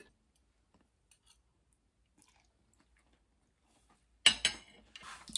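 Stainless-steel fork and spoon set down on a ceramic pasta plate about four seconds in: a quick cluster of sharp metal-on-china clinks and a short scrape, after near-quiet with only faint small ticks.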